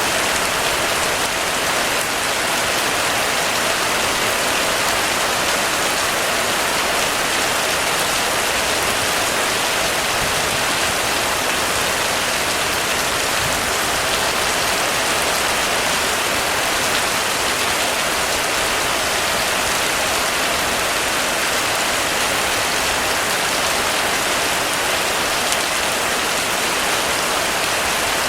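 Rain falling steadily on a roof, a dense, even hiss of drops.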